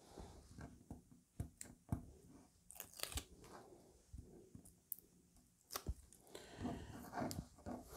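Faint crackling, with sharp little clicks and some rustling, as short strips of double-sided adhesive tape are pulled off and pressed onto the back of a paper cutout.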